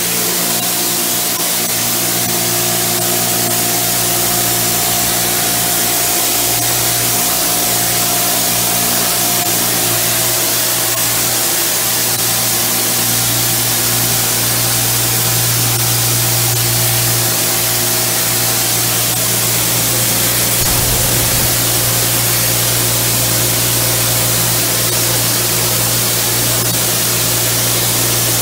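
Power washer spraying a jet of water onto ceramic shower tiles and grout: a steady hiss of spray over a steady low hum.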